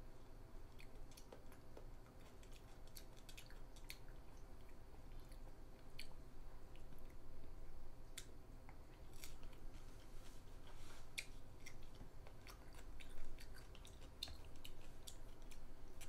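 A young child chewing and biting crisp raw vegetables (cucumber slices and lettuce), with irregular small crunches and wet mouth clicks.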